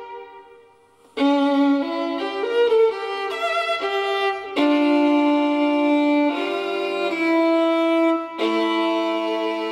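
Solo violin playing slow, sustained notes, often two at once. It opens with a note dying away almost to silence, and the playing resumes about a second in.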